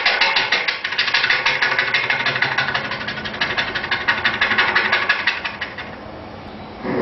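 A human beatboxer imitating a helicopter with his mouth: a rapid, even chopping pulse like rotor blades, which fades away about six seconds in.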